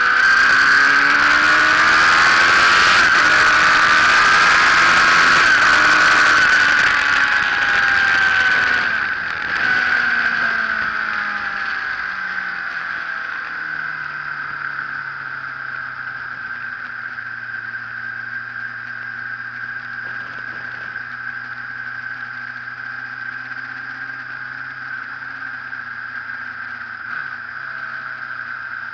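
Sports motorcycle heard from a camera on the bike, with engine and wind rush mixed together. For the first nine seconds both are loud and the engine note rises and falls. It then drops to a quieter, steadier low engine hum with wind noise.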